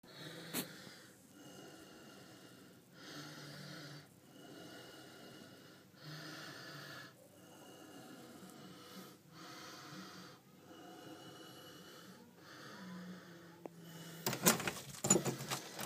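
A person's slow breathing close to the microphone, one soft breath every second or two. Near the end come several sharp, louder knocks and clatters.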